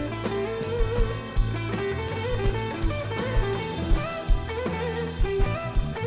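Live blues-rock band playing an instrumental passage: electric guitar playing a lead line with string bends, over drum kit and bass guitar with a steady beat.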